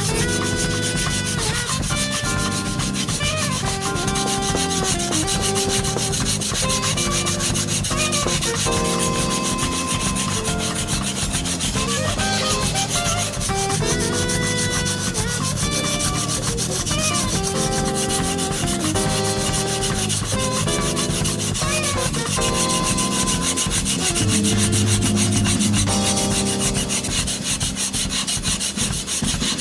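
Gyuto kitchen knife being ground back and forth on a whetstone in steady continuous strokes, thinning down a blade that was too thick. A melody plays along with it.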